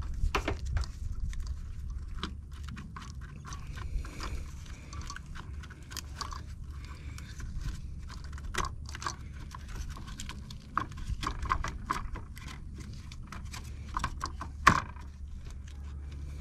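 Small plastic clicks, knocks and scrapes as a 2007 Toyota Camry's ABS control module is worked loose and pulled straight off its hydraulic unit, with one sharper, louder click near the end.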